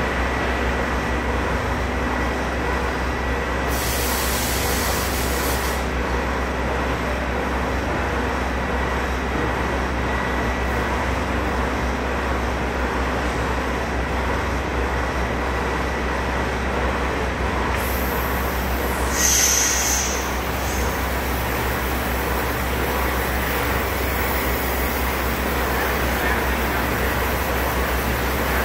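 Hydraulic power pack's electric motor and pump running steadily, driving the pusher's cylinders as they extend. A short hiss about four seconds in and a louder hiss with a high whistle about nineteen seconds in.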